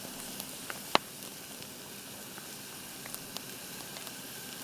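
Vegetables sizzling in a pan over a campfire: a steady frying hiss with scattered sharp pops, the loudest about a second in.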